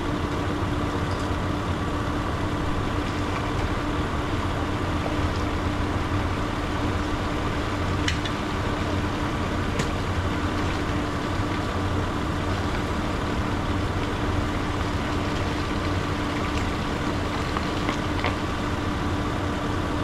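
A motor running steadily, a constant engine hum with a few faint clicks over it.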